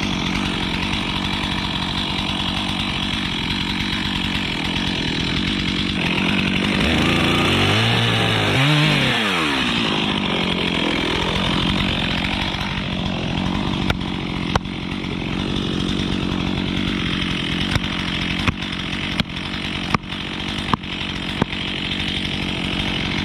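Stihl chainsaw running at high revs through the back cut of a dead pine being felled. Its engine pitch dips and climbs back once about eight seconds in. Several sharp cracks sound over it in the second half.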